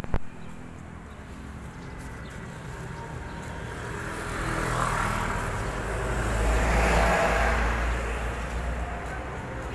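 Road traffic passing on a street, a motorbike among it. The noise swells twice as vehicles go by, about five seconds in and louder about seven seconds in, over a low rumble.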